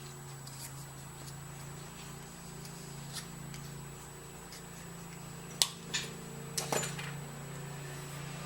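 A steady low hum with a few sharp clicks and knocks of small parts being handled, bunched together about five and a half to seven seconds in.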